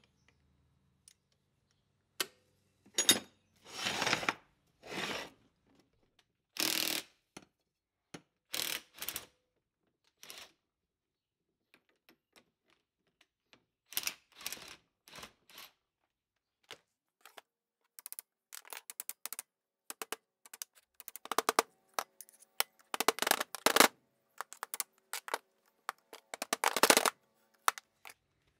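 Clanks, scrapes and rattles of hand tools and metal parts as the wire brush wheel and arbor hardware are worked off the shaft of a 1930s Sioux bench grinder. A few separate scrapes and knocks in the first half, then a dense run of quick metallic knocks and clatter with brief ringing through the second half.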